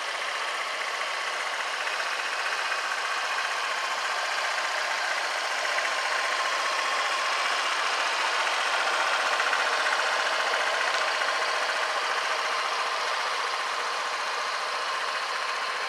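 Honda PCX125 scooter's single-cylinder engine idling steadily with a fast, even patter, a little louder in the middle.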